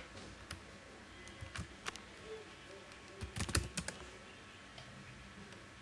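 Computer keyboard keys pressed: a few separate keystrokes, then a quick run of several about three and a half seconds in. It sounds like opening a command prompt window.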